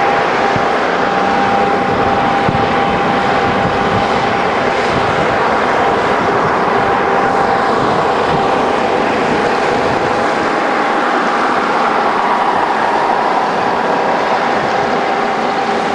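Convoy of wheeled armored military vehicles driving past: steady engine and tyre noise with a steady high whine running through it.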